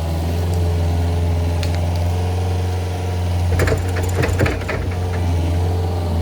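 Skid steer engine running steadily under load, with a short burst of knocks and rattles about three and a half seconds in as the machine works mud.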